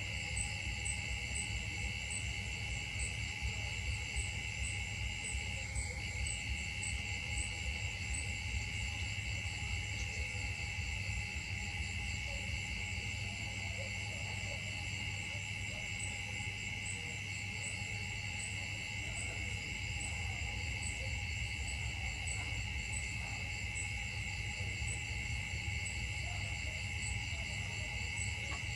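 Chorus of forest insects: a steady shrill drone with a higher chirp pulsing about twice a second, over a low steady rumble.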